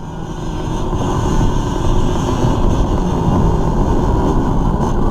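Dirt bike engine running, building up over the first second and a half and then holding steady.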